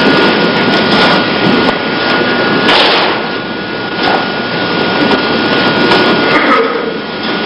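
Loud, steady hall and crowd noise in a large gymnasium, heard through old video-tape sound with a faint steady whine underneath, and a few sharp knocks at about one, three and four seconds in.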